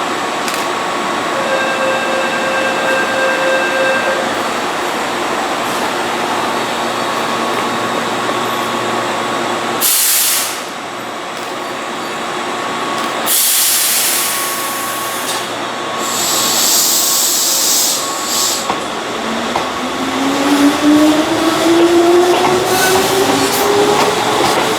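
Keihan electric train at a station platform, its equipment humming steadily, with sudden loud bursts of air hiss about ten and thirteen seconds in. Near the end the train pulls away, its motor whine rising in pitch.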